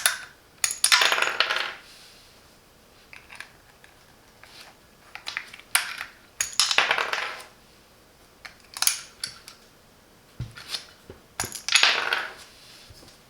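Keycaps being pulled off a mechanical keyboard with a keycap extractor and set down on a hard surface: scattered sharp clicks and short clattering rattles.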